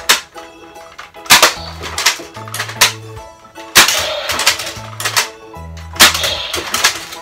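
Nerf N-Strike Longstrike CS-6 spring-plunger dart blaster firing shot after shot, sharp snaps a second or two apart, over background music with a steady bass line.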